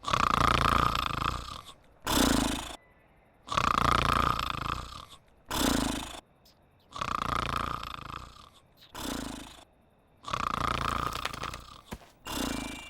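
Loud, regular snoring from a sleeping cartoon character. Each breath is a long snore of about a second and a half followed by a shorter one, and the cycle repeats about every three seconds, four times.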